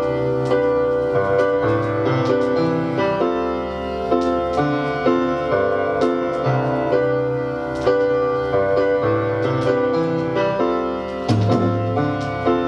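Piano-led instrumental introduction to a song, chords struck in a steady rhythm, played from a vinyl LP.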